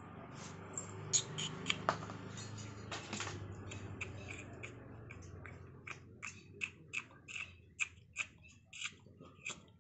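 A series of short, sharp clicks, scattered at first and then coming at about two or three a second from the middle on, over a faint low hum that dies away partway through.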